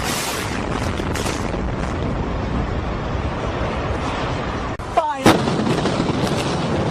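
Demolition blast and collapse noise: a steady, heavy rumble with two sharp bangs close together about five seconds in.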